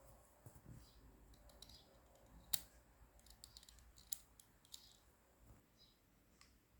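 Faint, scattered clicks and taps of small hard parts being handled, the sharpest about two and a half seconds in, with others near four and five seconds.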